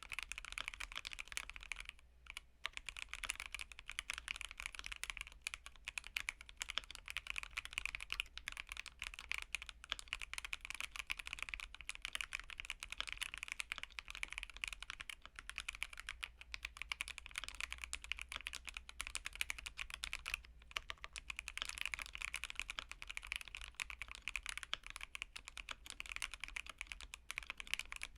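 Keychron Q1 mechanical keyboard with Aqua King switches, a polycarbonate plate and a Taobao tuning kit, typed on continuously in a fast, dense run of keystrokes. The typing breaks off briefly about two seconds in and again about twenty seconds in.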